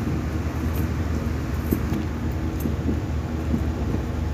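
A steady low rumble, with a wooden spoon stirring and scraping food in an aluminium pot, giving soft short strokes now and then.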